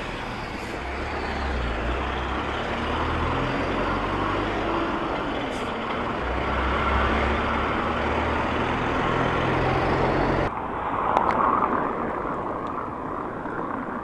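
Wind rushing on a bike-mounted microphone mixed with street traffic, including the low rumble of a city bus engine close alongside. About ten seconds in, the sound changes abruptly to lighter wind and road noise with less rumble.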